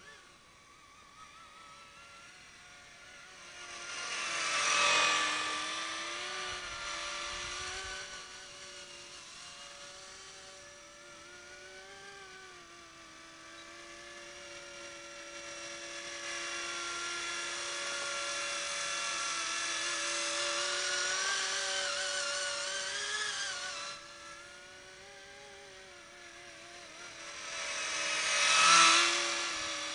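Model RC helicopter's motor and rotors whirring in flight with a high whine whose pitch wavers up and down with the throttle. It swells loudly twice as it passes close, about five seconds in and again near the end.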